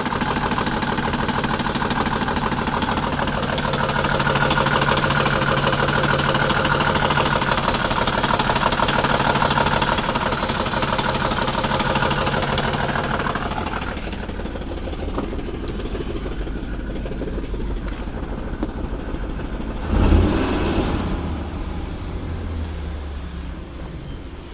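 Engine running with a rough idle. It runs higher and busier at first, then drops to a lower idle, with one sudden loud low surge late on that dies away over a couple of seconds.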